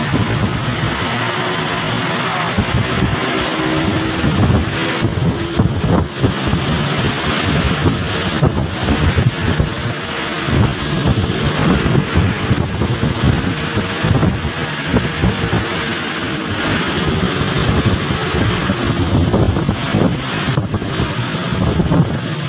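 Wind buffeting the microphone over the steady running and road noise of a moving vehicle.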